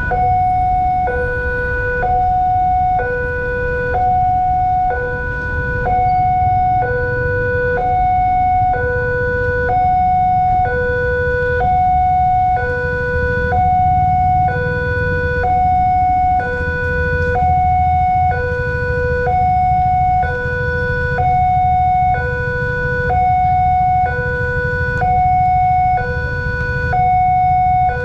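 Railway level-crossing warning siren sounding a two-tone hi-lo alarm, switching between a higher and a lower tone about once a second, the signal that a train is approaching the crossing. Low rumble of street traffic underneath.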